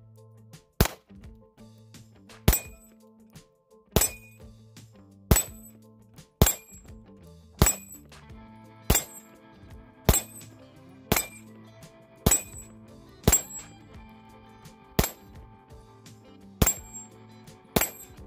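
Glock 19 Gen 5 9mm pistol fired in slow, steady single shots, about one a second and about fourteen in all, with a high metallic ring after many of them as steel targets are hit. Soft background music plays underneath.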